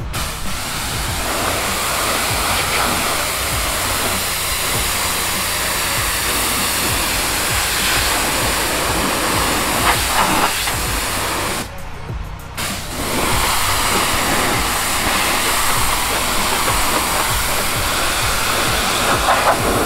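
Pressure-washer spray hissing steadily as the wand rinses the wooden deck boards, cutting out for about a second near the middle when the trigger is released, then starting again. A steady low hum runs underneath.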